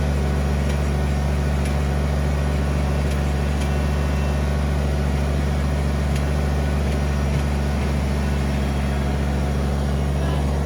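Kubota BX23S sub-compact tractor's three-cylinder diesel engine running steadily under the operator.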